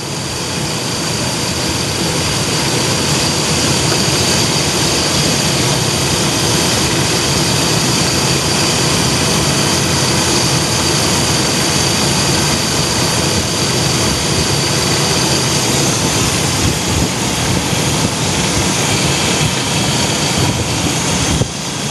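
Chevy Astro van engine running steadily at idle during a combustion-leak block test of the cooling system, thermostat removed, checking the head gasket. A steady high whine sits over the engine noise and fades out about three quarters of the way through.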